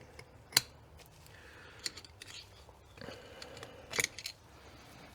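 Sharp metallic clicks and clinks of small steel parts from a limited-slip differential being handled. The loudest comes about half a second in, single ones near 2 s, and a quick run of several around 4 s.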